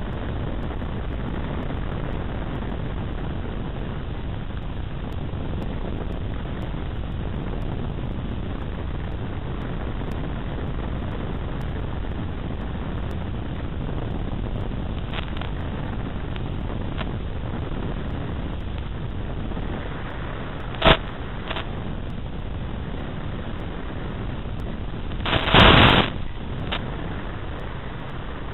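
Steady rush of airflow on the onboard GoPro Hero 2 microphone of an RC FPV plane in flight. There are a few faint clicks, then a sharp crack about three-quarters of the way in and a louder, brief crackle near the end.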